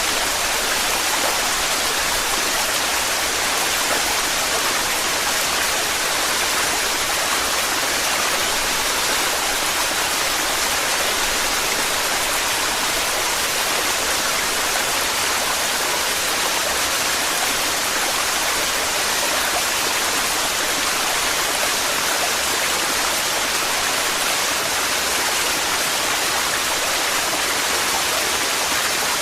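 Torrential waterfall: a steady, unbroken rush of falling water.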